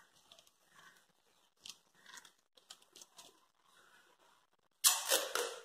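Faint rustling and crinkling of the kite and tape as they are handled, then near the end a loud ripping as adhesive tape is pulled off its roll.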